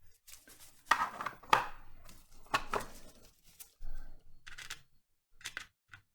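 Small metal hand tools clicking and scraping on the metal connector shield inside an opened iPhone 7 as the shield is being taken off: about eight sharp, irregular clicks spread over several seconds.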